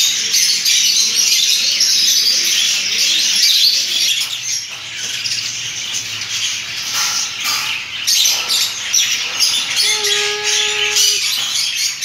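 A dense, continuous chorus of many caged small birds (budgerigars, canaries and finches) chirping, twittering and squawking all at once.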